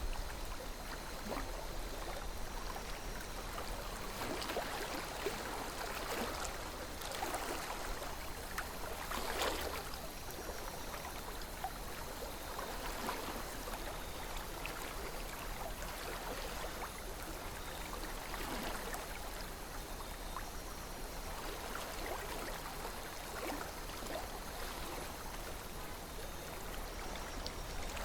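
River water flowing steadily, with small splashes and gurgles breaking through an even rush.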